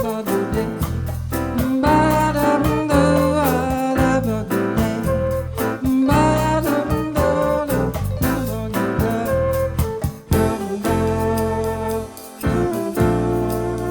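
Live bossa nova band playing: a melody line that bends between notes, over bass and steady drums.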